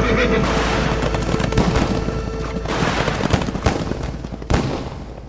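Music winding down under a string of gunshots, about eight irregular single shots, the loudest about four and a half seconds in, as the whole sound fades out.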